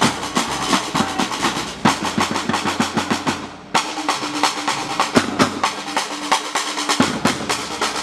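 Batucada percussion ensemble drumming a fast, dense rhythm. The drums fade briefly a little past halfway, then all come back in together.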